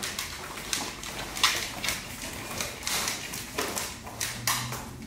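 A Doberman's claws ticking on a hard floor, mixed with footsteps and shuffling: scattered, irregular clicks about one or two a second.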